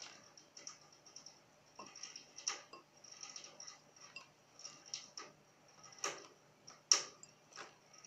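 A cockatiel bathing in a bowl of water, flicking its wings and splashing in quick, irregular little bursts, with a few louder splashes near the end.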